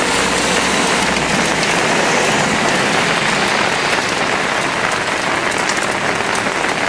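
Rain falling steadily onto water-covered pavement, an even hiss of splashing drops.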